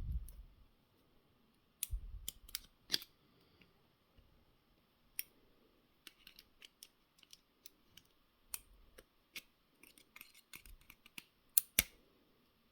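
Light, irregular clicks and taps of small metal parts being handled and fitted together as a car door lock cylinder and barrel are reassembled, with two sharper clicks near the end.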